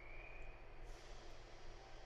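Faint steady low hum of an electric train standing with its doors open, with a faint high whine that rises and fades out within the first second.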